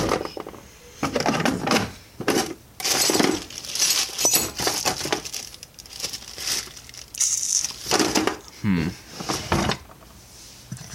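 Rummaging through a drawer of small metal bike parts: loose metal pieces clinking and rattling in repeated irregular bursts.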